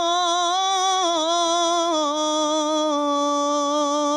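A man's solo voice sings one long held note of Arabic devotional praise singing (madih), with small ornamental turns and stepping down in pitch about one and two seconds in. No instrument is heard.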